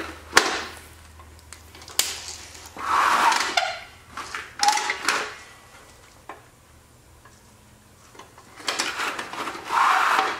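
Snowblower tracked drive unit being tipped and turned over by hand on a concrete floor: a couple of sharp knocks and several scraping, rubbing noises as the metal frame and rubber tracks drag on the concrete.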